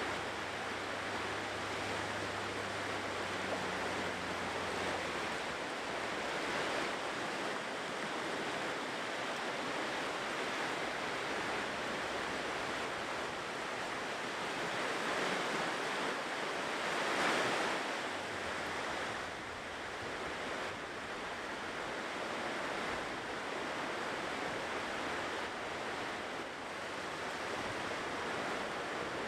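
Ocean surf washing onto a shore: a steady rushing sound that swells and eases as waves come in. One wave breaks louder about seventeen seconds in.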